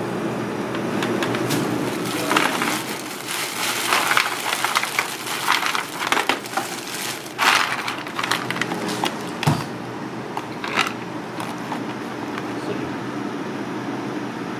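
Thin plastic bag crinkling and rustling in irregular bursts as it is handled, with one dull knock about nine seconds in, over a steady low background hum.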